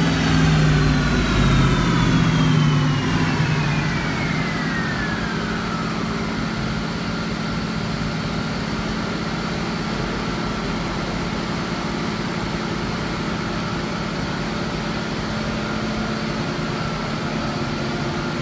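Dodge Challenger SRT8's Hemi V8 on a chassis dyno just after a pull: the engine drops back off the throttle while the rear wheels and dyno rollers coast down with a whine that falls steadily in pitch over about six seconds. The V8 then idles steadily.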